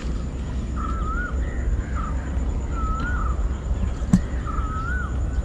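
A bird calling repeatedly, every second or two: a short note followed by a wavering whistle. Under it runs a steady low rumble, and there is one sharp knock about four seconds in.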